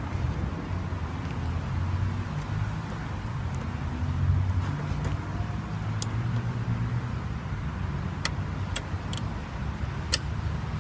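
A motor vehicle's engine runs with a steady low hum. In the second half, several sharp clicks sound as a metal rear rack is set onto its bike mounting points.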